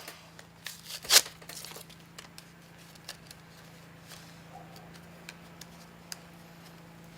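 A folding knife's retail packaging being opened by hand: one sharp tear or snap about a second in, a short rustle, then scattered small clicks and handling noises.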